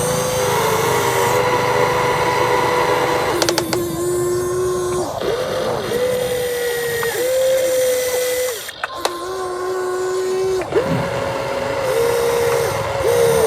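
Electric motor and hydraulic pump of an RC excavator whining. Its pitch drops and recovers every second or two as the machine's functions are worked and loaded, with a couple of sharp clicks.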